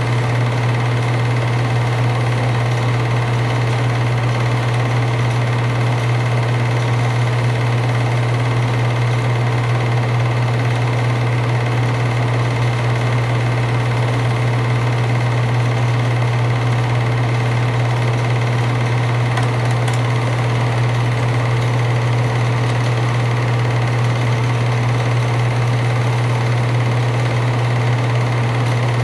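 Film projector running steadily during playback of silent 8mm home movies: a constant motor hum with a mechanical whir that does not change.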